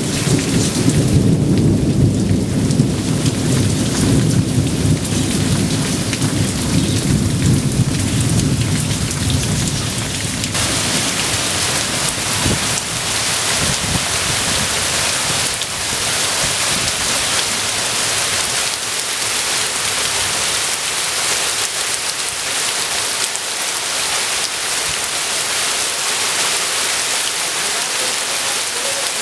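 Heavy monsoon rain pouring down, with a deep rumble of thunder under it. About ten seconds in, the rumble cuts off abruptly and the rest is a steady, brighter hiss of rain falling on foliage.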